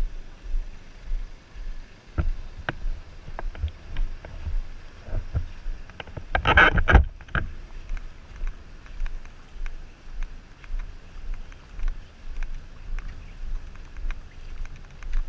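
Footsteps of the camera wearer walking on wet pavement, with the body-worn camera jostling at each step: dull thumps about twice a second. A louder rush of noise comes about six and a half seconds in.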